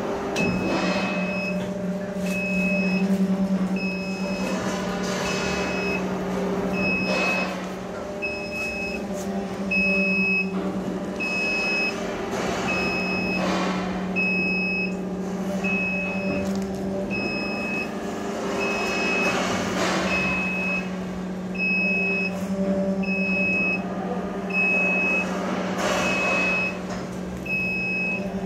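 Goods lift motor humming steadily as the loaded cage rises up its mast, with its warning beeper sounding about once a second and occasional rattles from the moving cage.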